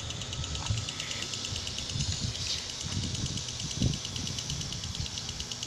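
Wind buffeting the phone's microphone as an uneven low rumble, over a steady, fast, high-pitched ticking of about eight ticks a second.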